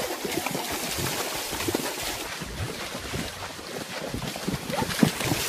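Horses wading through floodwater, their legs splashing and churning the water, with wind buffeting the microphone. A sharper splash comes near the end.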